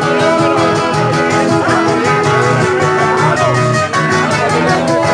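Live merengue played by a small band: plucked guitars and shifting melody lines over a quick, steady percussion beat.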